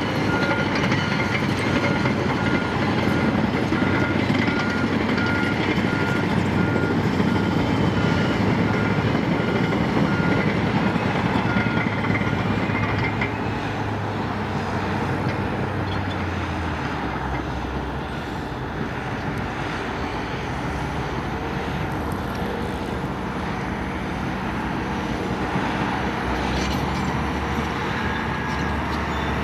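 Cat D5K2 low-ground-pressure bulldozer's diesel engine working under load, with its steel tracks clanking as it pushes dirt. A reversing alarm beeps steadily for about the first twelve seconds, then stops.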